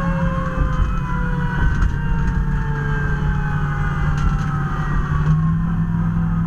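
Fire truck's siren wailing: one slow rise over about the first two seconds, then a long slow fall, over the truck's steady heavy engine drone.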